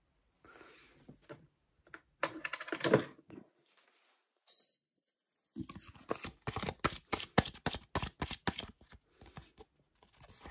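Fingernail scratching the coating off an instant lottery scratch-off ticket: a run of quick, short scraping strokes, about four or five a second, over three to four seconds in the second half. A louder rustle of handling comes about two to three seconds in.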